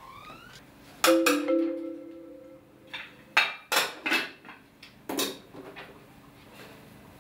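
A short marimba music sting: a rising sweep, then a struck note ringing out about a second in. From about three seconds in, pots and kitchen utensils clatter at a stove, five or six sharp knocks, the last one ringing briefly.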